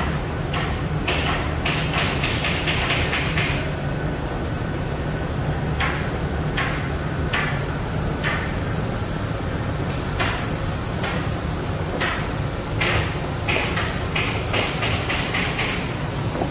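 Thermoforming machine running: a steady low hum with runs of short, sharp pneumatic bursts from its clamp frame's air fittings. The bursts come in quick runs of about four a second near the start and again near the end, and are spaced out in the middle.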